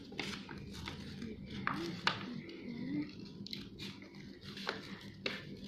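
Scissors snipping through paper: several separate, crisp snips at an uneven pace.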